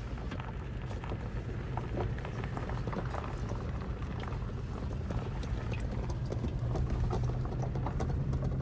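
Vehicle cabin noise while driving on a dirt road: a steady low drone from the engine and tyres, with frequent clicks and rattles from gravel and bumps.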